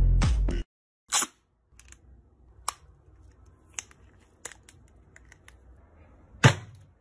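Electric mosquito racket being handled and swung: a handful of sharp, irregular clicks and snaps, a strong one about a second in and the loudest near the end.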